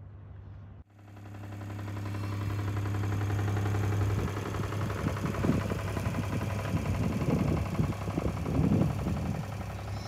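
A steady engine hum that swells over the first few seconds, with wind buffeting the microphone in gusts from about four seconds in.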